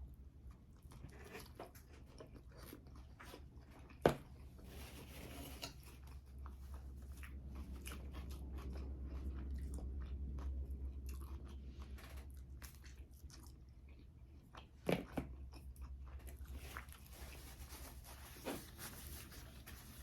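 A person chewing and biting food close to the microphone: many soft, irregular mouth clicks and smacks. There is a sharp click about four seconds in and another about fifteen seconds in, and a low hum swells in the middle.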